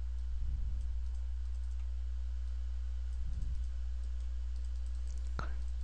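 Steady low electrical hum on the recording, with two soft bumps and a single sharp computer-mouse click near the end.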